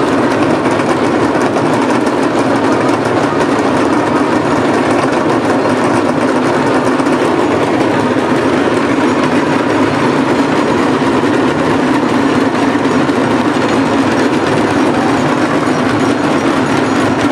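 Loud, steady din of a huge festival crowd, with rapid drumming from a drum band mixed into a dense, unbroken clatter.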